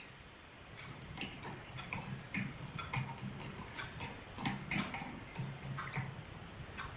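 Irregular light metallic clicks and ticks from a multitool's pivot bolt being screwed in and the tool being handled.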